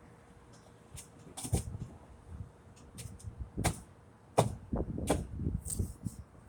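Irregular sharp knocks and thuds, a few per second at most, with the loudest hit about four and a half seconds in followed by a cluster of duller thumps.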